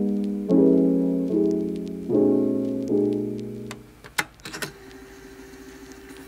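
Background piano music: soft chords struck about every 0.8 seconds, each ringing and dying away. The music stops about four seconds in, leaving a few faint clicks and a low steady tone.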